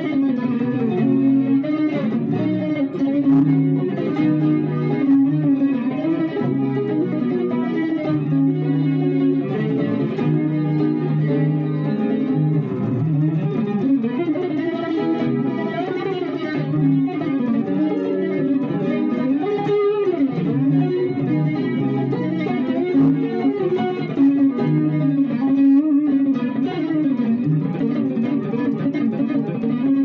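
Solo electric guitar played without accompaniment, chords and single notes ringing on into one another so that they blend into a flowing cascade of notes.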